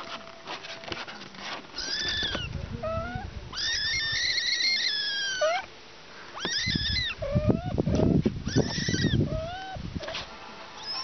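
Kittens mewing over and over in high, thin cries that rise and fall, with one long drawn-out cry a few seconds in. Low rustling from about six to nine seconds in, loudest in the middle.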